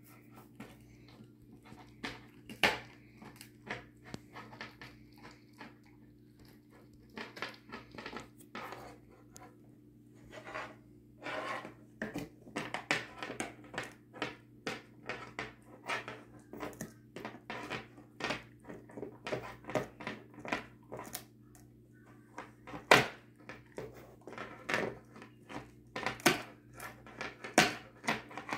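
A dog gnawing and crunching on a long bully stick, with irregular wet clicks and crunches, sparse at first and coming thick and fast from about ten seconds in. A faint steady low hum runs underneath.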